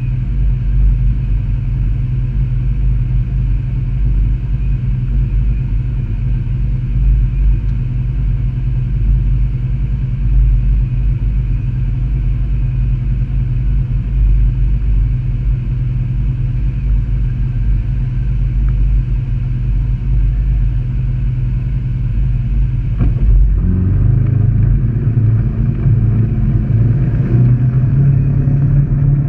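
Off-road vehicle's engine idling steadily while the vehicle stands still; about 23 seconds in it revs up and pulls away, running under load.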